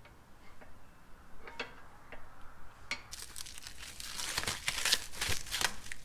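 A few light metal clicks from a screwdriver at the brake caliper, then, about three seconds in, the crinkling and tearing of the clear plastic wrapping on a set of new brake pads.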